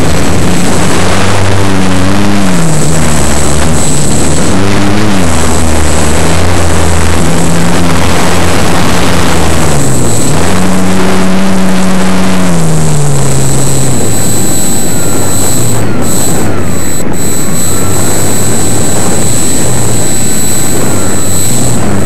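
Radio-controlled foam model airplane in flight, heard from a camera mounted on it: its motor and propeller drone loudly, the pitch rising and falling with the throttle over the first half, under heavy wind rush on the microphone. A thin steady high whine runs above it.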